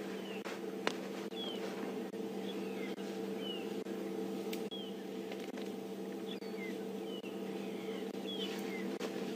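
Birds chirping in the bush, short falling calls about once a second, over a steady low hum. A single sharp click comes about a second in.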